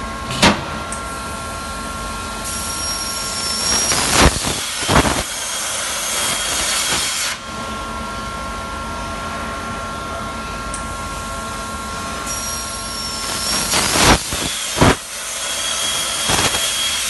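CNC thermal cutting machine's torch hissing in two cutting cycles over a steady machine hum with fixed tones. Each cycle's hiss switches on abruptly and carries two loud pops about a second apart. The first hiss cuts off suddenly after about five seconds, and the second is still running at the end.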